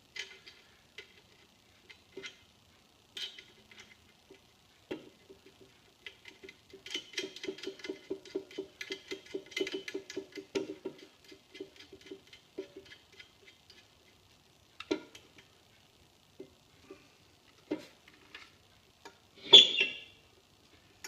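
Small metal parts of a bulkhead fitting being handled and a nut threaded on by hand. Scattered light clicks, then after about seven seconds a run of quick light metallic ticks lasting about four seconds, and a louder metal clank near the end.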